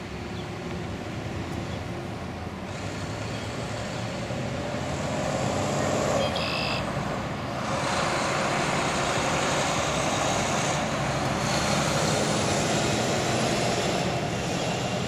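Road traffic: cars driving past on the street, a steady rush of tyre and engine noise that grows louder a few seconds in and stays up.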